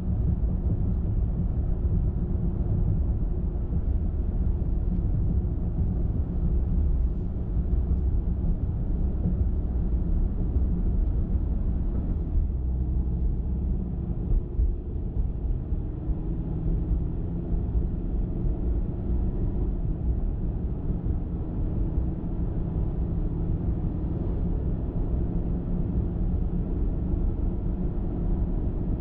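A car driving at a steady speed: a continuous low rumble of tyres on the road and the engine, with no sharp events.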